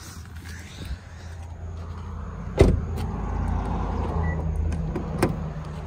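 A 2012 Hyundai Sonata Hybrid's car door is shut with one loud thump about two and a half seconds in. A second, sharper knock follows about five seconds in, over a steady low rumble.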